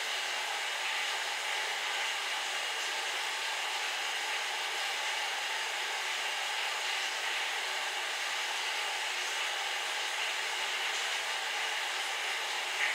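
Steady, even hiss of rushing air with no breaks, and a brief click near the end.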